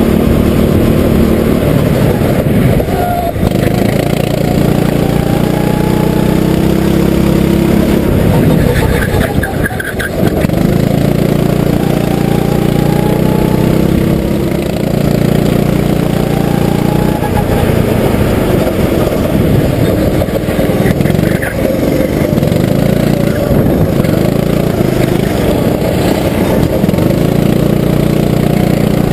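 Go-kart engine heard close up from on board, revving up along the straights and dropping off for the corners several times over.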